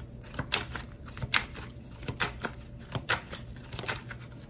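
A deck of tarot cards being shuffled by hand: irregular soft flicks and slaps of the cards, a few a second.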